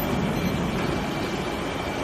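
Steady machinery noise, an even rumbling hiss with a faint high-pitched whine held throughout.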